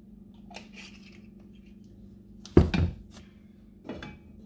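Kitchenware being handled on a gas stove: the oil bottle set down and the frying pan taken by its handle and shifted on the burner grate. There is a sharp clatter with a short scrape about two and a half seconds in, a lighter knock near the end, and a steady low hum underneath.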